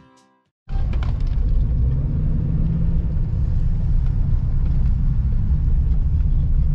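Pickup truck driving on a road, heard from inside the cab: a steady low rumble of engine and tyre noise that starts suddenly about a second in.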